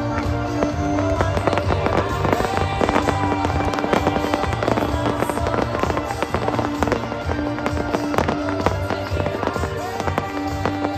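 Aerial fireworks bursting and crackling in a rapid, continuous stream of cracks and pops, with music with a steady beat playing under them.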